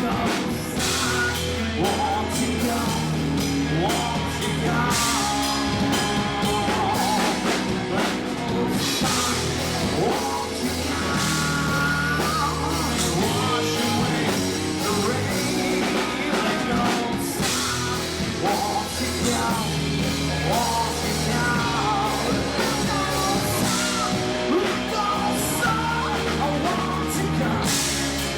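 A rock band playing live, with a singer, drums and guitars.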